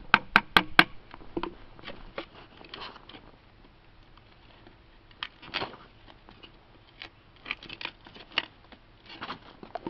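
A G-10 and titanium composite knife being driven into a thin wooden stick on a stump to cut a small square hole: four quick, sharp knocks at the start, then scattered small clicks and short bursts of wood cutting and cracking.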